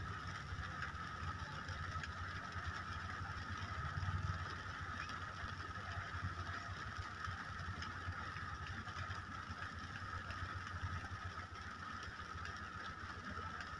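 Steady rain falling, with faint scattered drop taps, over a low rumble.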